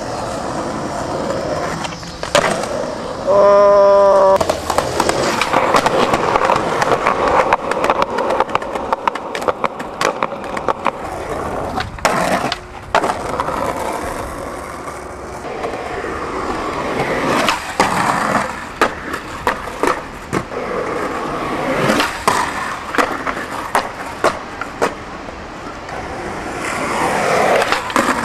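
Skateboard wheels rolling over rough pavement, broken by repeated sharp clacks of the board's tail popping and the board slapping down on landings. About three seconds in there is a short, loud pitched sound.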